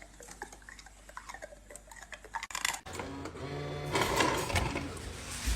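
Refrigerator ice dispenser: faint clicks, then about three seconds in its motor starts whirring and ice rattles and clatters out.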